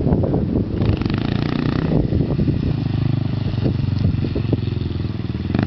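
Dirt bike engine running under throttle as the bike rides over rough dirt, louder and harsher for about a second near the start, then running steadily, with some clattering knocks in the first second.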